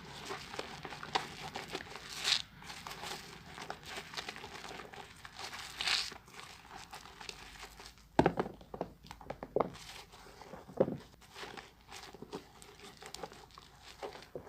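A wet bar of Efko children's soap being lathered, with continuous fine crackling and squishing of foam. There are louder swishing strokes about 2 and 6 seconds in, and a few sharper squelches between about 8 and 11 seconds in.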